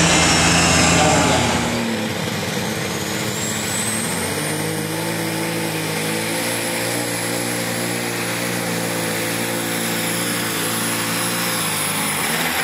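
A pulling tractor's engine running flat out under load as it drags the weight sled, holding a steady pitch that steps up about four seconds in, with a high whine rising over the first few seconds. It is preceded by a louder engine sound from another pulling tractor, which cuts off abruptly about two seconds in.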